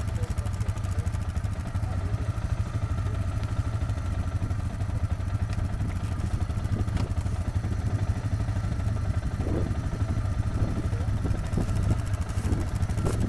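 Yamaha Grizzly ATV engine running at a steady low speed, with a few faint knocks.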